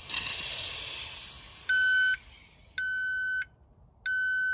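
A short hiss of gas sprayed from a hand-held nozzle at a Carbest gas leak alarm. The alarm then sounds three steady half-second electronic beeps a little over a second apart: it has detected the gas.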